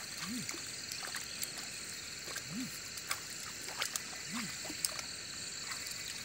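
Frogs in a flooded rice paddy giving three short, low calls about two seconds apart, over a steady high insect drone. Scattered faint ticks run through it.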